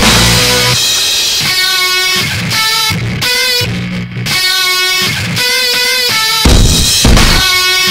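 Background rock music with guitar and drums, in chords that change every second or so.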